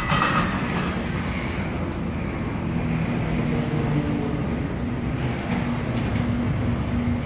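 Small model jet turbine in an RC helicopter running through its automatic cool-down after shutdown, turned by its starter to push air through while the engine is still hot: a steady rush of air with a low hum that grows a little firmer partway through.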